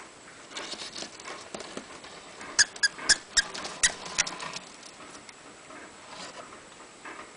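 A small pet scrabbling and pattering about, trying to climb up, with a quick run of six sharp clicks or squeaks about a third of the way in.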